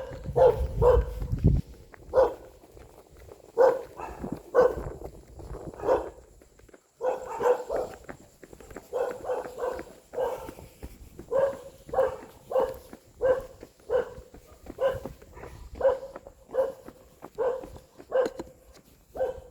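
A dog barking over and over, short barks coming about one to two a second.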